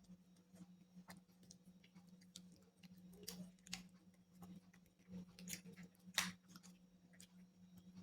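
Close-miked eating: faint, scattered chewing and mouth clicks. The loudest smack comes about six seconds in, over a steady low hum.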